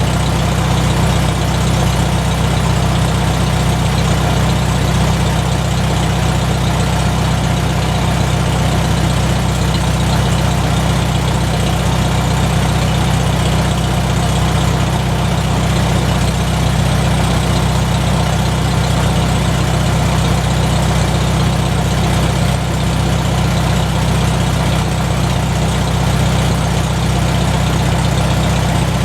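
McCormick-Deering W-4 tractor's four-cylinder engine idling steadily.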